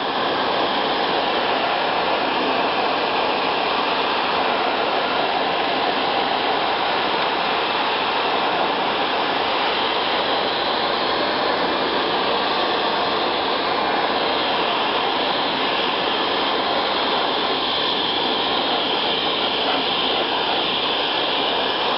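Hair dryer running steadily, blowing hot air into a PlayStation 3's vents to heat the console as a home fix for the yellow light of death.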